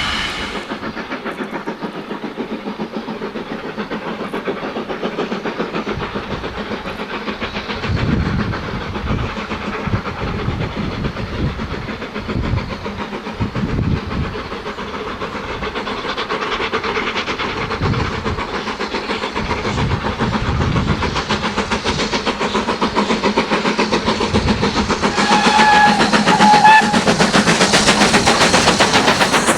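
BR Standard Class 4 2-6-4 tank steam locomotive No. 80135 running with fast, even exhaust beats, getting louder over the last few seconds. A brief high tone comes in near the end.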